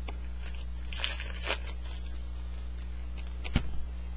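Foil baseball card pack wrapper being torn and crinkled, in a series of short crackles with a sharper snap about three and a half seconds in, over a steady low electrical hum.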